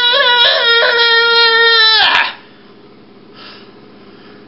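A loud, high-pitched wailing cry, held at a steady pitch with slight wavers, that cuts off abruptly about two seconds in, leaving quiet room tone.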